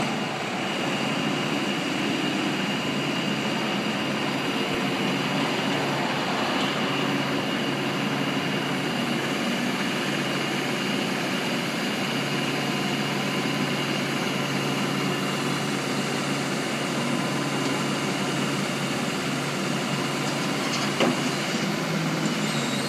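Heavy truck engine running steadily, with a steady high-pitched whine above it and a single sharp knock near the end.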